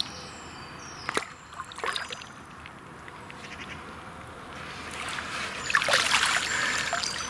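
Lake water sloshing around a carp landing net as a fish is released, with a few sharp knocks in the first two seconds. From about five seconds in, a louder rush of water streaming and dripping off the net as it is lifted out.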